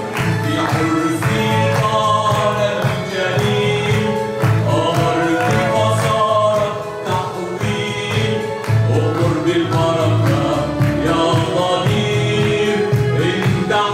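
A Christian hymn sung by voices over instrumental accompaniment with a steady beat.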